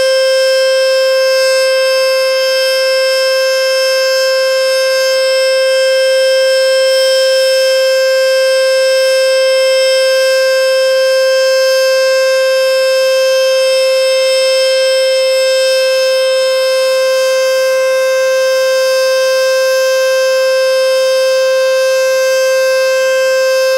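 Federal Signal Model 2-240 outdoor warning siren sounding the steady alert signal: one loud, unwavering high note with a rich stack of overtones, held at full speed.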